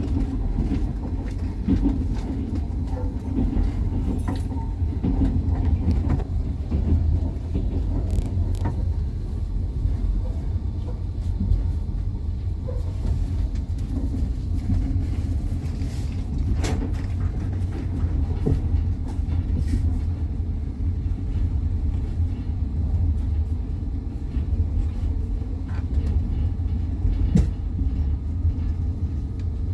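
Passenger train running on the rails, heard from on board: a steady low rumble of wheels on track, with a few sharp clicks.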